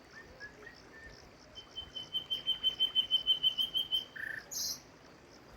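A bird calling: a rapid run of clear, evenly repeated notes, about six a second, starting about a second and a half in and lasting over two seconds, followed by a short harsher call. Underneath, a faint steady hiss and a regular high insect chirping.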